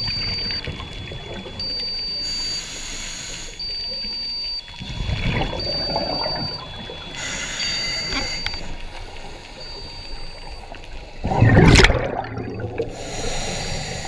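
Scuba diver breathing through a regulator, heard underwater: a rush of exhaled bubbles about every five seconds, with a louder whoosh about twelve seconds in. Short high beeps repeat at an even pace over it, alternating between two pitches.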